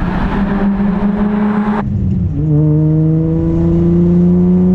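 Infiniti G35 coupe's V6 engine running at a steady pitch as the car drives by. After a cut about two seconds in it is heard from inside the cabin, its note rising slowly as the car pulls under acceleration.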